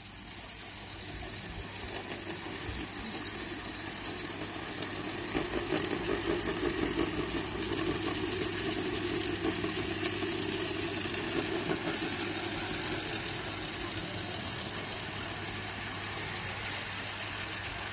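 Model diesel train running along garden-railway track with a steady mechanical hum. It grows louder as the train passes close, loudest from about five to twelve seconds in, then eases off a little.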